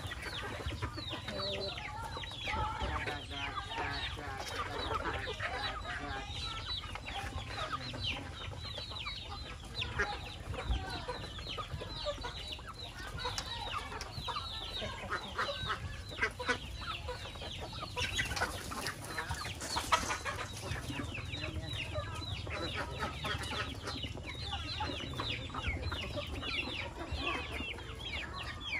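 A flock of chickens clucking and calling, a dense, unbroken chatter of many short high chirps.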